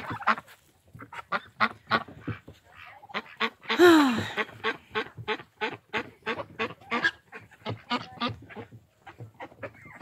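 Farmyard waterfowl calling: a steady run of short calls, several a second, with one louder, drawn-out call about four seconds in.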